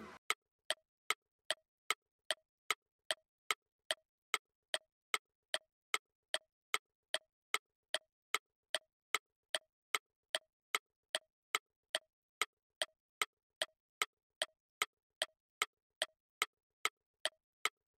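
Clock tick-tock sound effect ticking steadily at about two and a half ticks a second, timing a quiz countdown.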